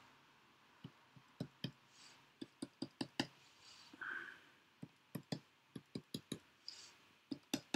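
Fine-tipped pen tapping and scratching on paper as short marks are drawn: an irregular run of small, sharp clicks with a few soft brief strokes between them.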